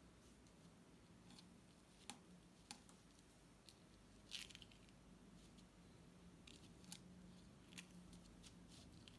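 Near silence, with a few faint, sharp clicks and small rustles from fingers picking at and pressing on a sand-painting card; the clearest click is about four seconds in.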